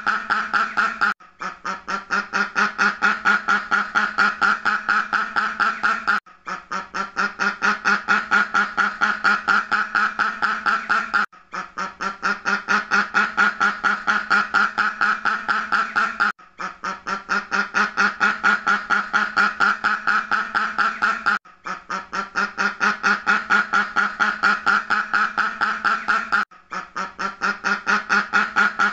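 Duck quacking in a rapid, unbroken string of quacks. The recording repeats about every five seconds, with a brief gap at each repeat.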